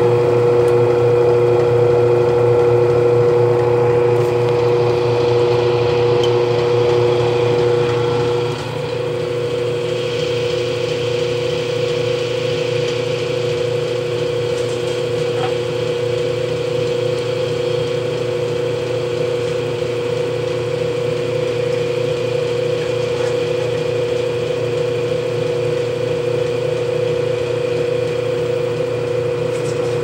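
Brastemp Baby BLK20 top-loading washing machine in its spin cycle, spinning out a rug: the motor and basket run with a steady whining hum. About eight seconds in the sound drops a little in level and then carries on evenly.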